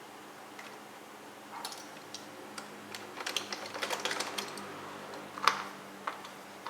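Plastic clicks and clatters of a Roomba 600/700-series bottom faceplate being worked loose by hand, its screws released. The clicks are scattered, come in a busy run in the middle, and are followed by one sharper click.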